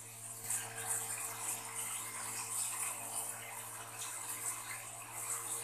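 Faint soft scraping and rustling of a slotted spatula lifting and turning cooked pulao rice in a non-stick pan, over a steady low hum.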